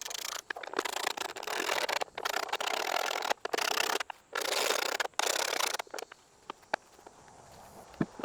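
Outboard motor's plastic engine cowl being worked down onto the powerhead, rubbing and scraping in several bursts of a second or so each, then a few light clicks near the end.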